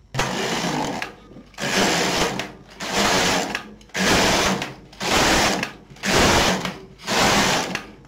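Domestic single-bed knitting machine carriage pushed back and forth across the needle bed, seven quick passes of about a second each, each pass knitting a row.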